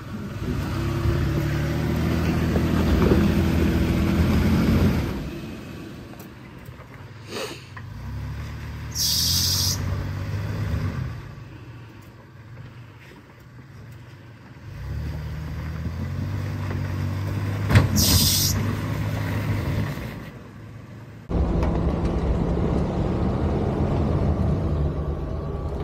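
Toyota 4Runner engine revving and labouring in several stretches as the truck crawls over icy rock ledges, pitch rising and falling with the throttle. A sharp knock comes about seven seconds in and another near eighteen seconds, and two short high hissing bursts are heard, one about nine seconds in and one near eighteen seconds.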